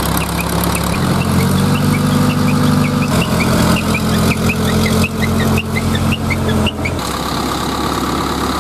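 Heavy diesel engine of a hydra crane running steadily, its note shifting abruptly about a second in, about three seconds in and again near seven seconds. Short high chirps repeat over it, several a second.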